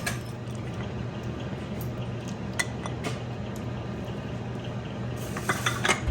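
Steady kitchen noise with a low hum, broken by a few light clinks of kitchenware and some sharper ticks near the end.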